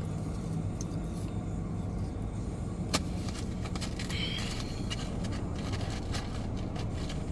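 Steady low hum and rumble of a car, heard from inside the cabin, with a single sharp click about three seconds in.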